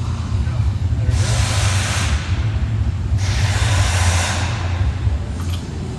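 Low, steady rumble of a vehicle, with a rushing noise that swells and fades twice, about a second in and again about three seconds in.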